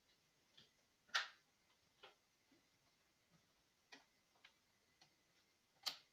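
Scattered small sharp clicks and taps against near silence, irregular, with two louder clicks, one about a second in and one near the end.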